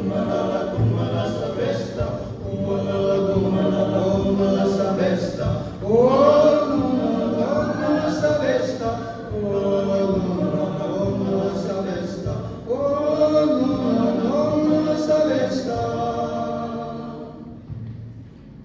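Male a cappella group singing in harmony, several voices together with no instruments, swelling twice and then fading out near the end.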